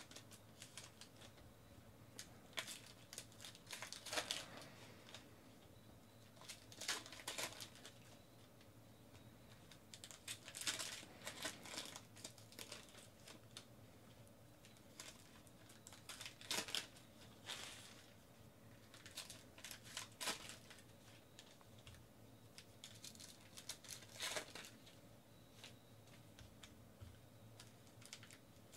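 Baseball trading-card pack wrappers crinkling and being torn open in several short bursts, with cards being handled and shuffled in between.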